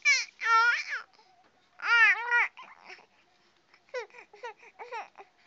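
Baby vocalizing in high-pitched, wavering babbles and whiny cries. A few drawn-out sounds come in the first half, then a quick run of short choppy ones about four seconds in.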